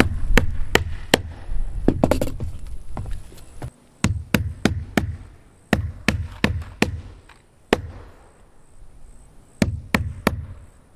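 Hammer driving nails to fasten a roof drip edge: quick sharp strikes in bursts of several blows, with short pauses between nails and a longer one near the end. Wind rumbles on the microphone for the first few seconds.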